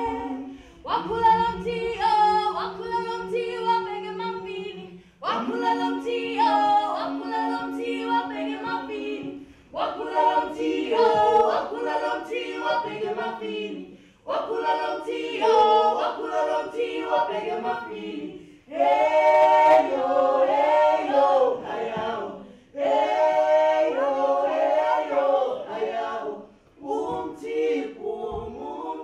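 A small group of voices singing a cappella, without instruments, in repeated phrases of about four seconds with brief breaks between.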